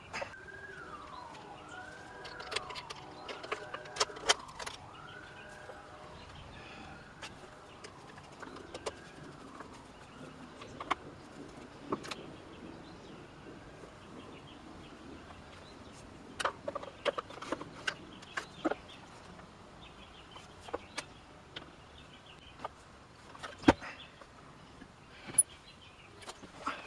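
Scattered sharp clicks and knocks of metal parts and hand tools being handled while a chainsaw is put back together. Through the first several seconds a faint siren wails, rising and falling about once a second.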